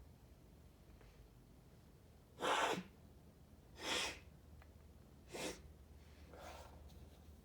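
A man sniffing hard through the nose four times, about a second and a half apart and starting about two seconds in, drawing sneezing snuff up his nostrils. The first sniff is the loudest and the last is faint.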